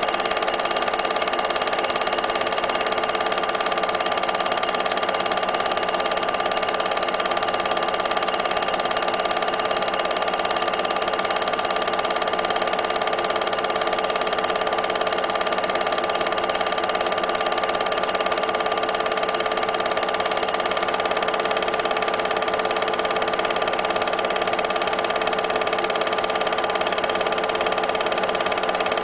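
8mm film projector running: a steady mechanical whirr with a constant hum of several fixed tones that does not change.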